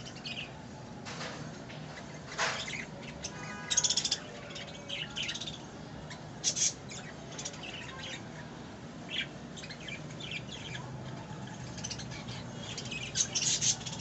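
Pet budgerigars chirping in short, scattered calls while feeding, with louder bursts about four seconds in, about six and a half seconds in, and near the end.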